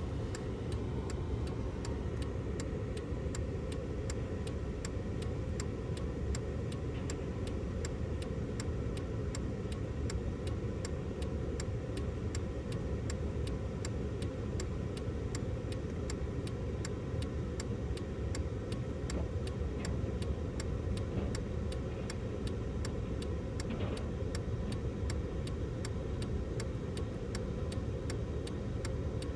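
Engine running steadily with a sharp, regular ticking over it, about three ticks a second: the unexplained noise coming from the engine.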